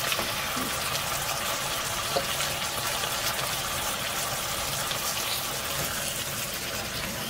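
Meatballs and vegetables sizzling steadily in oil in a pot, just after canned chopped tomatoes have gone in; a light tap about two seconds in.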